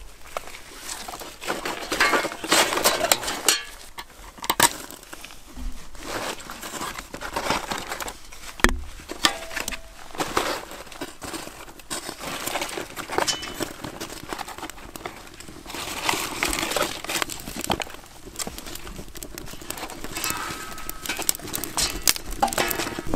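Dry sticks and crumpled paper being handled and laid in a steel fire barrel, with sharp knocks and rustling. Later the paper and pine-needle kindling catches and crackles as it burns.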